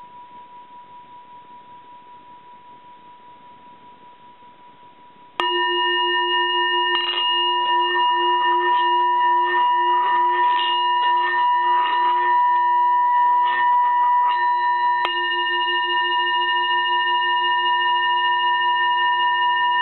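Tibetan singing bowl ringing with a wavering, pulsing hum. A faint tone fades for about five seconds, then a much louder sustained ring with several overtones starts suddenly and holds, with rough, rasping noise over the middle few seconds.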